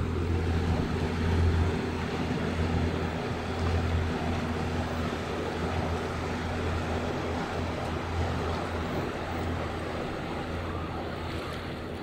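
Boat engine running steadily under wind and water noise, slowly fading toward the end.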